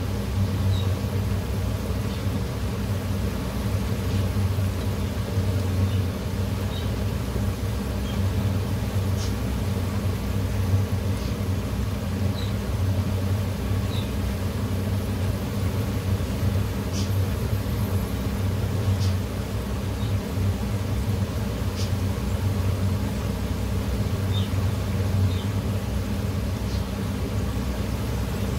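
Cabbage pakoras deep-frying in a pan of oil, sizzling with scattered small pops, over a steady low hum.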